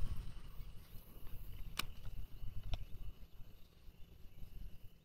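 Outdoor ambience: a low, uneven rumble like wind on the microphone, with two sharp clicks about a second apart near the middle and a faint steady high insect drone.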